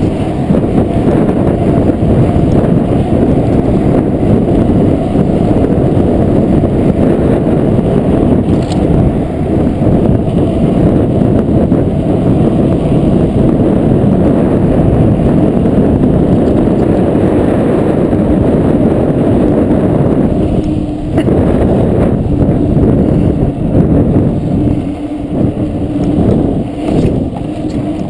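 Heavy wind buffeting on the microphone of a bicycle-mounted camera as a mountain bike rolls fast downhill on asphalt, a loud, dense low rush. About three-quarters of the way through, the rush eases and turns uneven and a steady low hum comes through.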